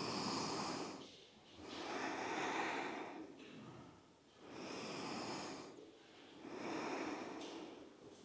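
A woman's slow, deep breathing held during a stretch, heard as four long breaths of about a second each with short pauses between them.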